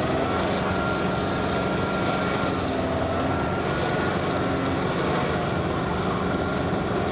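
A 250-horsepower outboard motor running steadily in gear, power-loading a deck boat up onto its trailer.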